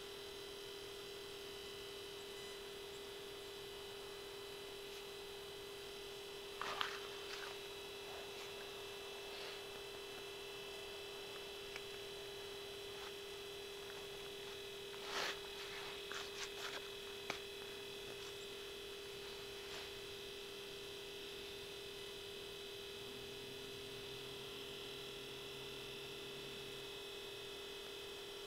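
A steady, even hum at a single pitch, with a few short clicks and knocks about seven seconds in and a small cluster around fifteen to seventeen seconds.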